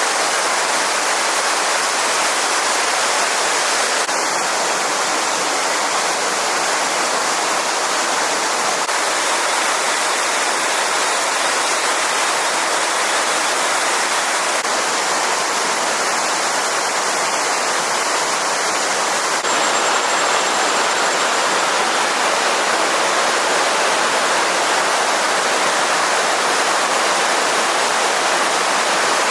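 Stream water running steadily, an even hiss of flowing water with no breaks.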